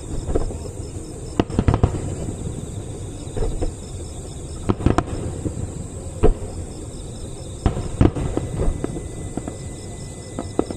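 Aerial fireworks bursting: many sharp bangs at irregular intervals, the loudest about 1.5, 5, 6.3 and 8 seconds in, over a continuous low rumble of shells going off.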